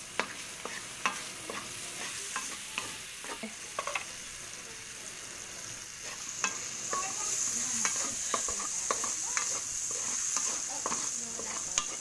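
Sliced sausage frying in butter and garlic in a large aluminium wok, sizzling steadily while a wooden spatula stirs and scrapes the pan with scattered knocks and clicks. The sizzle grows louder about halfway through.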